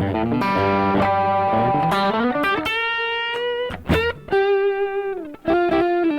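Electric guitar played through a Rad Custom Shop Valkyrie overdrive pedal set to mid gain with its bass knob turned down, giving a thin tone lacking body. It plays a phrase of notes with string bends, then held notes with a couple of short breaks near the end.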